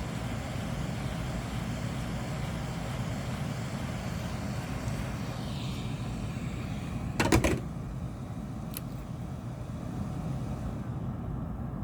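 Hot air from a rework station blowing steadily at about 110 degrees, softening phone adhesive. A short burst of clicks, about seven seconds in, is the loudest moment.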